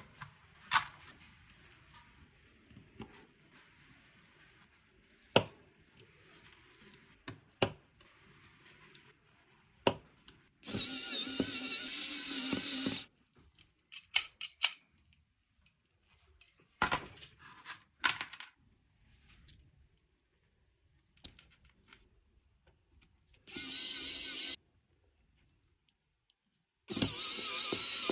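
Small parts and tools clicking and knocking on a workbench during assembly, with three short runs of a small power tool: one of about two seconds, then two of about a second near the end.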